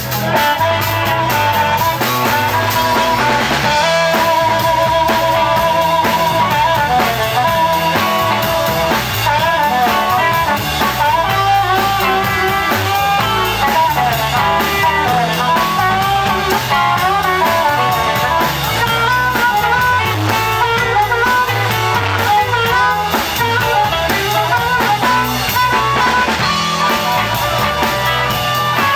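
Blues band playing live: a harmonica cupped in the hands takes the lead over electric guitar and drum kit, with a warbling trill on held notes a few seconds in.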